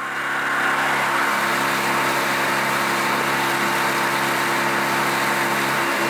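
Yamaha 25 hp four-stroke outboard motor running steadily at cruising speed, with a steady rush of water and wind as the inflatable boat speeds along. It fades in over the first second.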